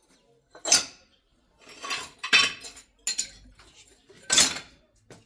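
A series of sharp clinks and knocks of hard objects, about six, irregularly spaced, each ringing briefly.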